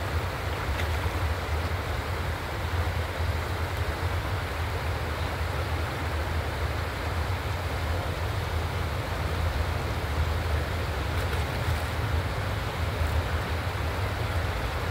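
Shallow river rushing steadily over rocks, an even noise with a heavy low rumble underneath.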